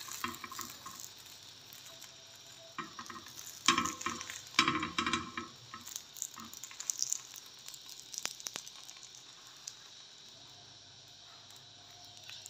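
Oil sizzling and crackling on a hot tawa under a shawarma flatbread being warmed. The sizzle comes and goes, with louder crackling spells a few seconds in.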